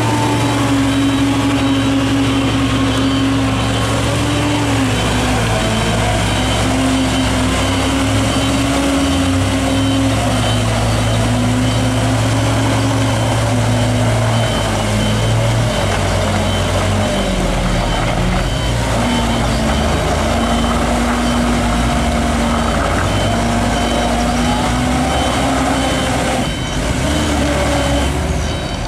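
Heavy diesel truck engine working hard with its wheels stuck in deep mud, its note rising and dipping as the throttle changes. A reversing alarm beeps steadily over it.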